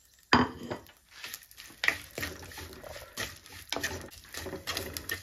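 A ladle stirring and scraping dried anchovies around an earthenware clay pot. There are irregular scrapes and rustles, the loudest about a third of a second in.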